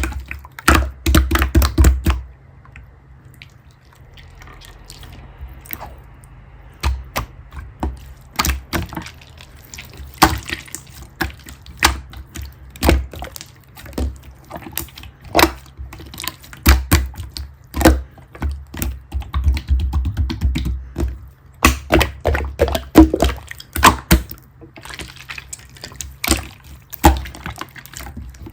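Pearl slime being squished, pressed and poked by hand, making rapid sticky clicks and pops with soft thuds. It eases to faint squishing for a few seconds, from about two seconds in, before picking up again.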